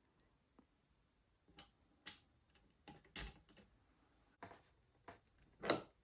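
Scattered light clicks and taps of small propeller parts being handled and fitted, as the washer and bolt go back onto the motor shaft of an electric RC plane and are tightened. About nine separate clicks, the loudest a little after three seconds and near the end.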